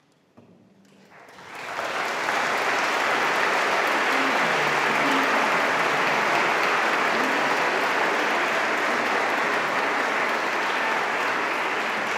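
Audience applauding: the clapping starts about a second in, swells within a second, then holds steady and dense.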